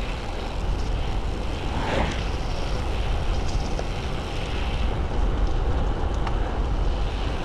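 Wind rushing over the camera microphone on a moving road bike, a steady low rumble, with the hiss of the tyres on the pavement mixed in.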